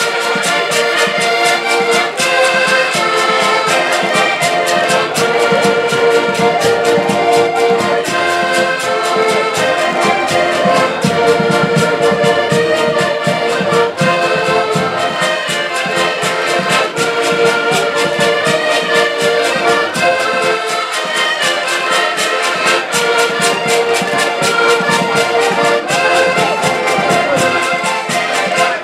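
An ensemble of diatonic button accordions (Portuguese concertinas) playing a traditional folk tune in unison, with a steady, even beat.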